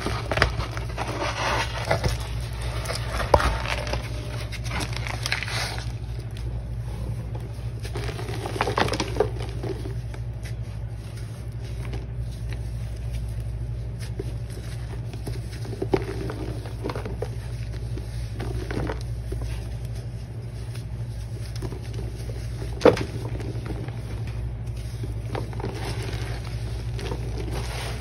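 Hands crushing damp Ajax cleanser powder chunks and squeezing them into a thick paste: a grainy crunching and crumbling, strongest in the first few seconds, then softer with a few sharp crackles, over a steady low hum.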